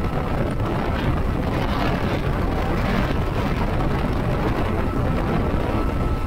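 Mercury outboard motor running at speed, mixed with the steady rush of water from the wake and wind buffeting the microphone.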